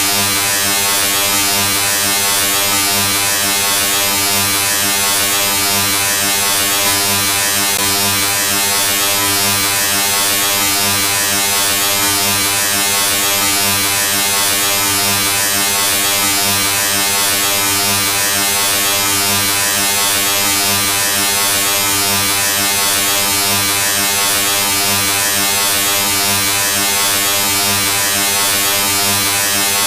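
A steady, harsh electric buzz that holds one low pitch with many overtones over a bright hiss, unchanging throughout.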